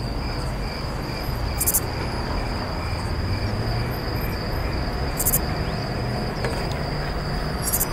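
Steady insect-like trilling, a high continuous note with a fainter chirp pulsing about twice a second, over a low rumble. A short high hiss comes every three seconds or so.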